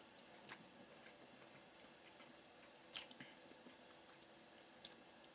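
Near silence with quiet, closed-mouth chewing of food and a few faint mouth clicks: one about half a second in, a louder one about three seconds in, and a quick pair near the end.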